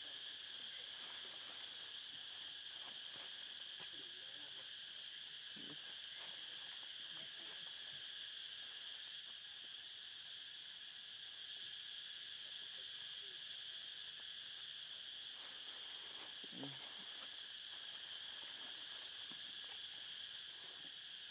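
Steady, high-pitched insect chorus droning without a break. A couple of faint short sounds rise above it, about six seconds in and again about sixteen seconds in.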